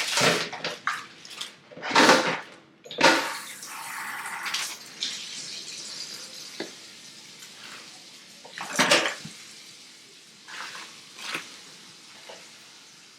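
Kitchen sink work: dishes and pots clattering, and a tap running for a few seconds before tapering off, then a few more knocks of dishes.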